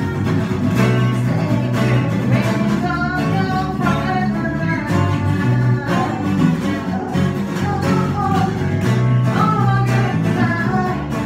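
Electric bass and acoustic guitar playing a band groove together, the bass carrying a steady line of low notes under the strummed guitar. A vocalist sings the melody over them from about three seconds in.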